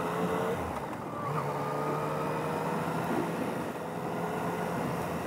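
Motorcycle engine running steadily under way, its note dropping out briefly about half a second in and picking up again a moment later.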